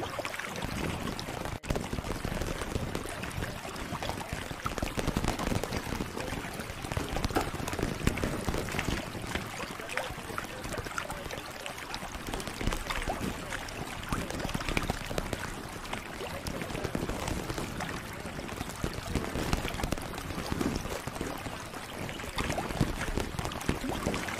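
Close-up ASMR trigger sounds: a dense, irregular crackle of many small clicks and taps, with a brief break about a second and a half in.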